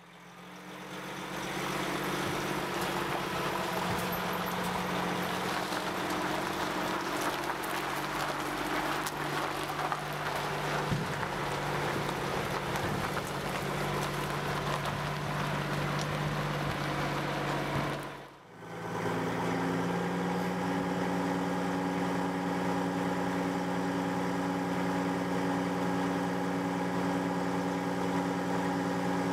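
Heavy truck's diesel engine idling steadily, fading in at the start. About 18 seconds in the sound briefly dips and returns as a steady idle with a slightly different tone.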